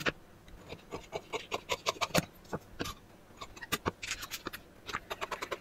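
Scissors cutting through a sheet of pattern paper: a quiet, irregular run of short snips, with the paper rustling as it is moved, most about four seconds in.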